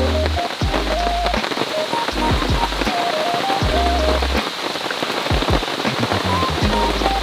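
Rain falling on surfaces as a dense, steady scatter of drops, with background music of a simple stepping melody over low bass notes.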